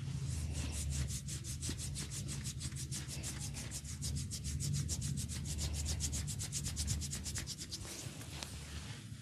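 Hands rubbing briskly over a head during a head massage, a fast even run of scratchy strokes about six a second that stops shortly before the end.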